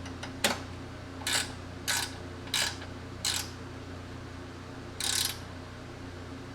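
Ratchet wrench clicking in short back-and-forth strokes, about six in the first half and a longer run about five seconds in, as bolts on the overflow tank mount are tightened.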